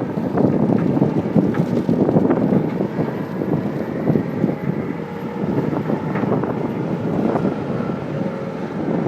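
Cat skid steer's diesel engine running steadily with a brush mower attachment, with wind buffeting the microphone.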